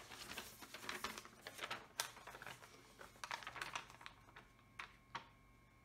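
Diamond-painting canvas's protective release sheet crackling and rustling as it is laid back down over the adhesive, in quick irregular crackles that thin out to a few single clicks near the end.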